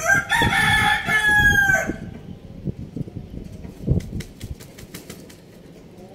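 A rooster crowing once, a call of nearly two seconds that dips in pitch at the end, followed by light scattered ticks of hens pecking at rice in a bowl.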